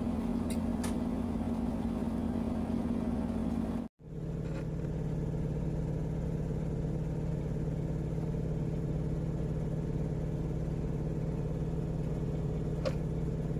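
A steady low machine hum. It cuts out for a moment about four seconds in and comes back slightly lower in pitch, with a few faint clicks.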